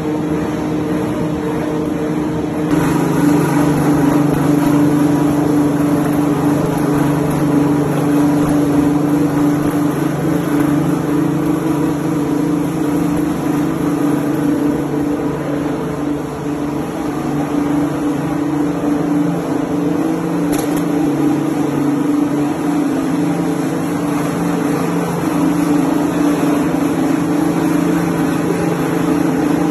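Soap production machinery running: the motors of a soap plodder extruding a continuous bar and the bar-cutting line make a steady electric hum and drone. It grows louder about three seconds in.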